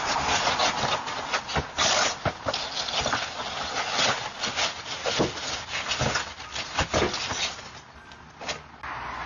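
A door being kicked and packages handled: irregular thuds and knocks over a steady hiss, with a quieter stretch near the end.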